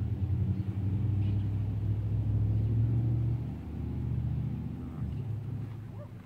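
A motor vehicle's engine running, a low steady rumble that is loudest in the first half and fades over the last few seconds.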